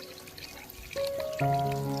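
Background music of held electronic notes: quiet at first, then a new note enters about a second in and a fuller chord comes in near the end.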